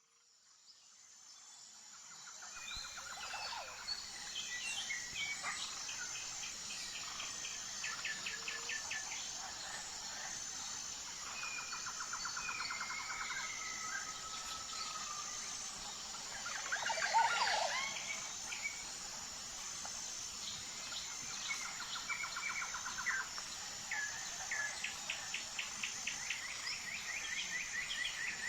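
Forest ambience: a steady, high, pulsing chorus of insects with several birds singing rapid trills and whistled calls over it, one louder call about two-thirds of the way in. The sound fades in over the first few seconds.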